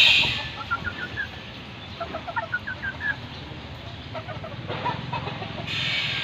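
Bantam chickens clucking softly in three quick runs of short rising notes. A steady high buzz comes in near the end.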